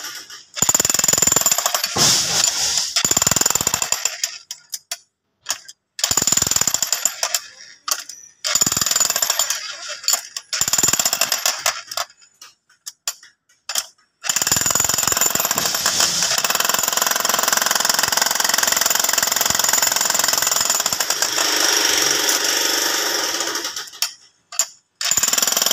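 Electric demolition hammer chiselling into rocky soil. It hammers in short runs of a second or two with pauses between them, then runs without a break for about ten seconds, stopping briefly near the end.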